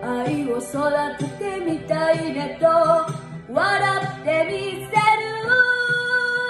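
A young girl singing a Japanese song over a karaoke backing track; her voice slides up about three and a half seconds in, and she holds a long note near the end.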